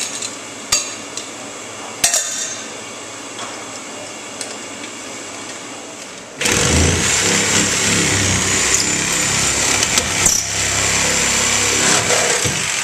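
A few light metal clicks of a wrench on the drain-pipe fitting under a commercial garbage disposal. About halfway through, a corded power saw starts loudly and runs steadily, cutting a hole into the wall to reach the drain line.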